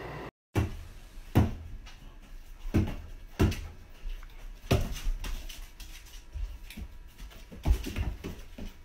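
A large dog's paws thumping on a hard kitchen floor as it pounces around a small dog in play: about half a dozen irregular thuds with lighter knocks in between.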